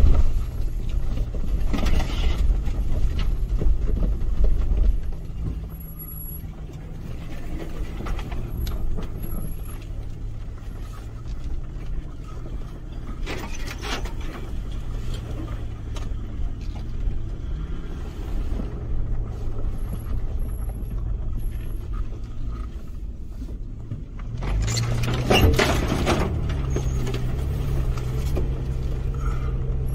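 Toyota FJ Cruiser's 4.0-litre V6 running at low revs while the truck crawls over a rough dirt track, with a rumble of tyres and suspension that is heaviest in the first few seconds. A few sharp knocks or scrapes come through, at about 2, 13 and 25 seconds in. The engine note rises near the end as the truck speeds up.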